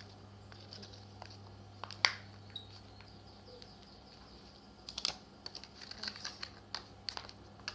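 Slime being handled by hand, giving irregular small sticky clicks and pops: one sharper click about two seconds in, then a quick run of clicks from about five seconds on.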